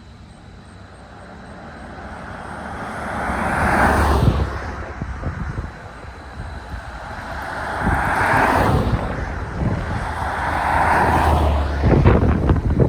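Audi Quattro's 20-valve turbocharged five-cylinder engine driving past, growing louder to a peak about four seconds in and falling away, then swelling again around eight and eleven seconds. Wind buffets the microphone near the end.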